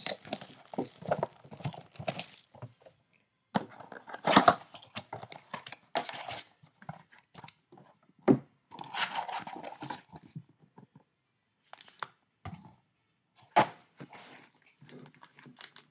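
Plastic wrap being torn and crinkled off a cardboard trading-card blaster box, then the box opened and its foil card packs handled and set down: irregular rustling and crinkling with a few light thuds.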